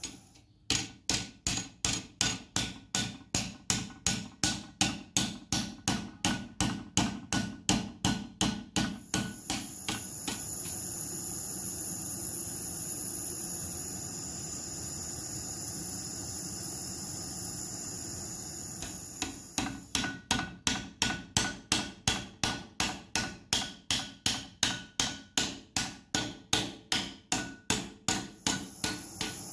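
Hand hammer striking a red-hot steel pipe wrench part on the anvil of a bench vise, in a fast run of about three blows a second. About ten seconds in the blows stop for a steady gas-torch hiss while the part is reheated, then another run of quick blows starts about two-thirds of the way through.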